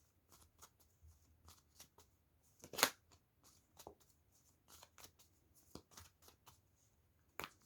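Tarot cards being handled and laid out on a table: faint scattered slides and taps of card on card, with a louder brushing slide about three seconds in and another near the end.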